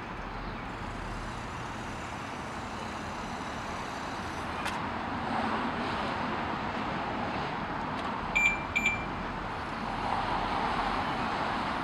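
Street traffic noise that swells twice as vehicles pass, with two quick high-pitched electronic chirps a little past the middle.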